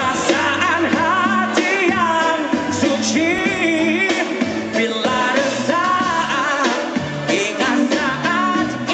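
A man singing live into a handheld microphone over an amplified band backing with a steady bass line and drums, heard through a concert PA.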